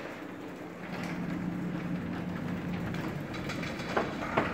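A steady low machine hum, with a couple of light knocks about four seconds in.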